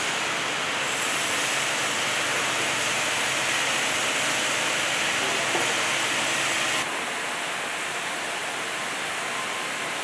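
Steady, even hiss-like noise of sawmill machinery running, dropping slightly in level and brightness about seven seconds in.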